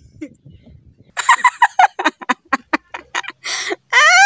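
Chickens clucking: a fast run of short clucks, about five a second, starting about a second in.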